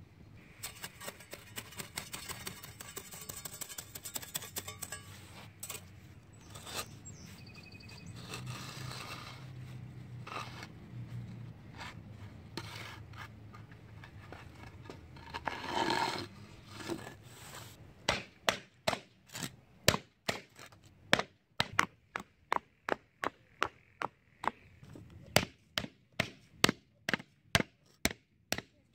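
Scraping and rubbing of sand under a concrete paver as it is levelled and shifted by hand. In the second half, a rubber mallet strikes a wooden board laid on the paver in a steady run of sharp knocks, about two a second, bedding the slab into the sand.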